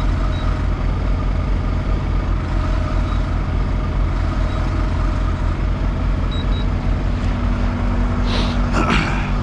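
Heavy 64-tonne truck's diesel engine idling steadily at an even pitch, with a short burst of hiss near the end.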